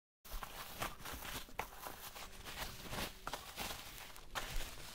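Bubble wrap rustling and crinkling as it is pulled off a box by hand, with irregular crackles and a few sharper clicks.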